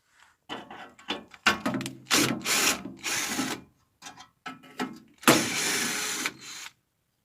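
A tool undoing the bolts of an engine's protective cover: a series of short mechanical rasping bursts. The loudest and longest starts a little past five seconds in and runs for over a second.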